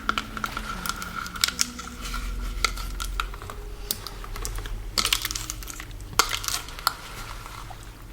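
Close-miked ASMR handling of a small object: a run of sharp clicks and taps with some crinkling, heaviest in short clusters about five and six seconds in, over a faint steady tone.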